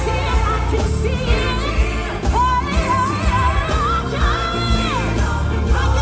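Live gospel band music over a heavy bass line, with a high voice singing a wavering, melismatic line and holding one long note through the middle, and shouts from the room.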